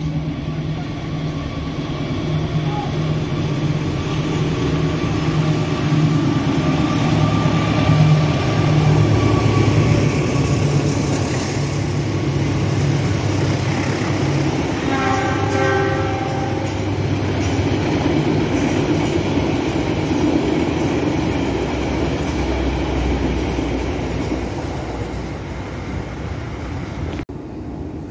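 Indonesian passenger train of stainless-steel coaches passing at close range. An engine hum is heard for roughly the first ten seconds, then steady wheel and rail noise as the coaches roll by. A train horn sounds once, for about a second and a half, roughly halfway through.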